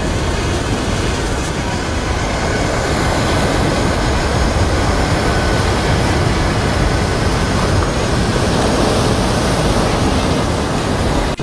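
Strong wind buffeting the microphone outdoors: a loud, steady rushing noise, unsteady in the low end, with no tones or rhythm.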